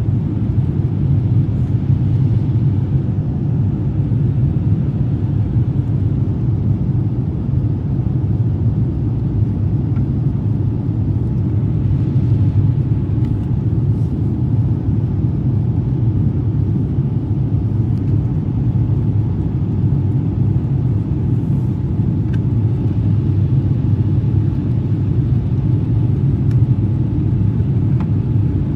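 Steady low rumble of an airliner cabin in flight: jet engine and airflow noise heard from inside the cabin.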